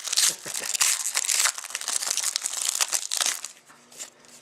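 Trading-card pack wrapper being torn open and crinkled: dense crackling for about three and a half seconds, then it stops.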